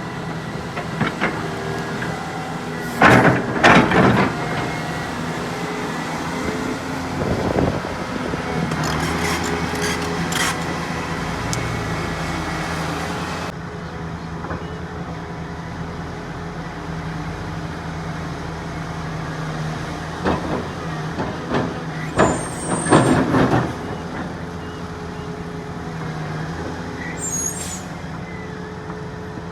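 Heavy diesel engines of an excavator and dump truck running steadily, with several short loud bursts of hiss or clatter over the drone, the loudest about three seconds in and again near twenty-three seconds.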